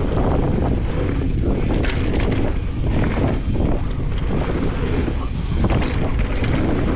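Mountain bike rolling fast down a dirt flow trail: steady wind noise on the action camera's microphone over tyre noise, with scattered small clicks and rattles from the bike.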